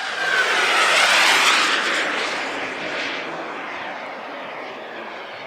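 Turbine-powered RC jet, the Hangar 9 Aermacchi MB-339, making a flyby: its turbine's rushing whine swells to a peak about a second in, then fades as it passes.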